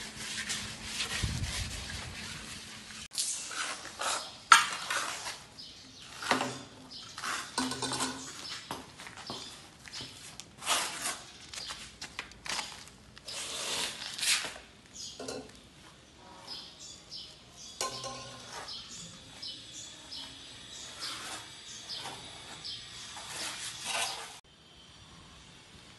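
Hand trowel scraping and tapping on wet cement plaster as a concrete wall is rendered, in irregular short strokes with light clatter. It stops abruptly near the end.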